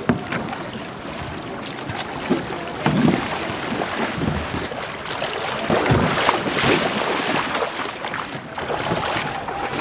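Water splashing in the shallows as paddlers jump out of an inflatable canoe and wade it ashore, in several surges over a steady rush of noise.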